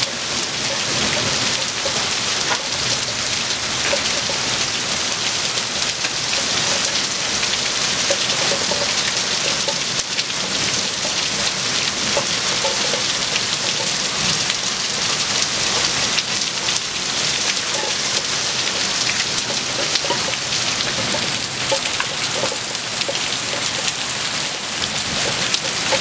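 Heavy rain pouring steadily in a thunderstorm: a dense, even hiss dotted with the fine patter of drops.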